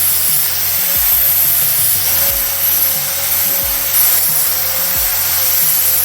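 Angle grinder running steadily against steel, cleaning up fresh welds, with a loud rushing grind over a steady whine; it starts and cuts off abruptly.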